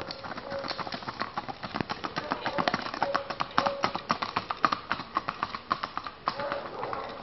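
Hooves of a Tennessee Walking Horse gelding clip-clopping in a quick, continuous run of strikes as the horse moves along.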